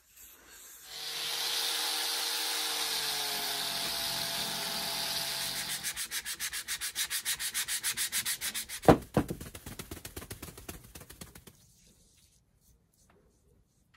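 Sandpaper rubbed by hand over a turned wooden bowl: first a steady sanding hiss with a faint hum that drops in pitch, then quick back-and-forth strokes about four a second from about six seconds in, with one sharp knock near nine seconds. The sanding stops near the end.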